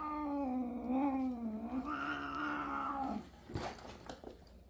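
Sedated domestic cat yowling from inside a closed soft pet carrier: one long, wavering, drawn-out cry of an angry cat that stops about three seconds in. A sharp knock follows about half a second later.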